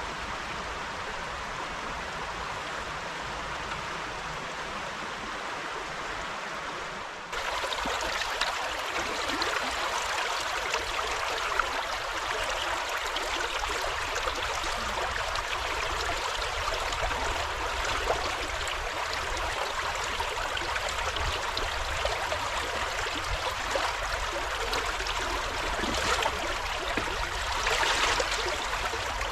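Steady rush of a river running over stones, which gets louder and brighter about seven seconds in.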